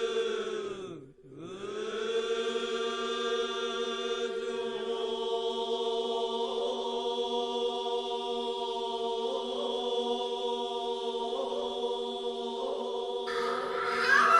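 Sustained droning music like a low chant, holding one pitch with many overtones; it fades out and swells back about a second in. Wavering higher tones drift over it, and brighter singing voices come in near the end.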